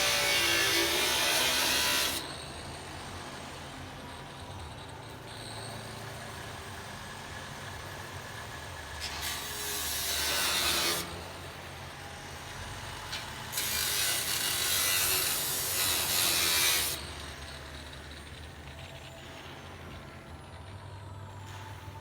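Power tool cutting into the steel hull in three bursts of a few seconds each, with a quieter steady running sound between the cuts.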